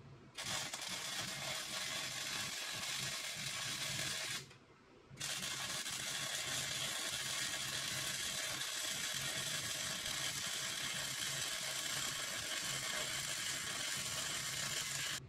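MIG welding arc crackling and hissing steadily as a bead is laid on steel box tubing; the arc stops about four seconds in and strikes again about a second later for a longer run of some ten seconds.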